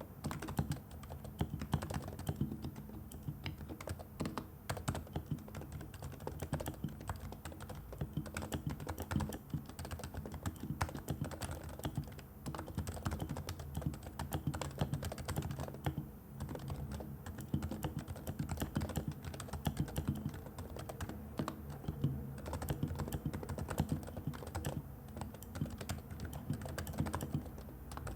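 Steady fast typing on a Realforce R2 keyboard's Topre switches, fitted with silencing rings and PBT keycaps: a dense run of deep keystrokes with a few brief pauses.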